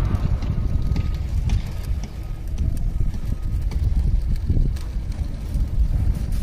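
Wind buffeting the microphone outdoors, a heavy, unsteady low rumble, with a few faint ticks over it.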